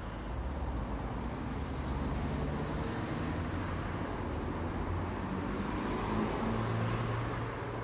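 Low mechanical running hum of a vehicle's motor or engine over a steady rumble. Its pitch shifts downward in steps and grows a little stronger near the end.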